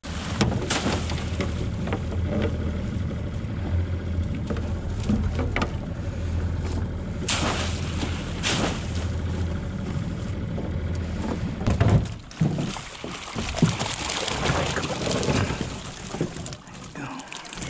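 Small outboard motor idling with a steady low hum while a hoop net is hauled out of the water over the side of a boat, water splashing and pouring off the mesh, with a few sharp splashes and knocks. The motor hum stops about twelve seconds in, leaving the splashing and handling of the net.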